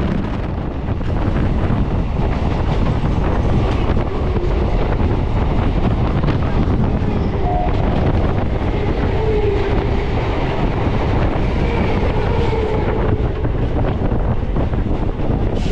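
Electric suburban local train running at speed, heard from on board: a steady, loud rumble of the wheels on the track.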